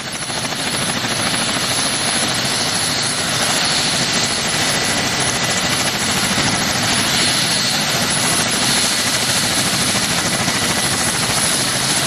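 Coaxial-rotor helicopter running: steady, dense rotor and engine noise that fades in over the first second.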